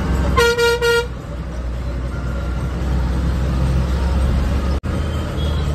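A vehicle horn gives three quick toots about half a second in, over the steady low drone of the bus's engine and road noise heard from inside the cab.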